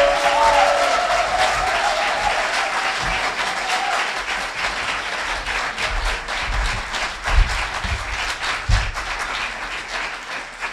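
Audience applauding after a speech, a dense clatter of many hands that slowly fades. A few low thumps come between about six and nine seconds in.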